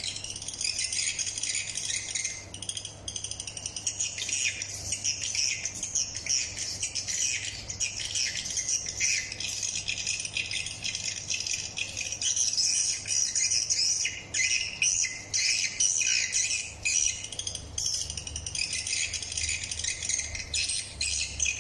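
Recorded swiftlet calls played through an outdoor swiftlet-calling speaker (SWALLOWSOUND SHD-280): a dense, continuous high twittering and chirping meant to lure swiftlets to a bird house.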